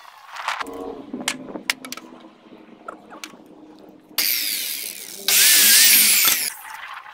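A power tool runs loudly in two short bursts, starting about four seconds in, the second louder, each cutting in and out abruptly. Before that come a few light knocks of boards being handled.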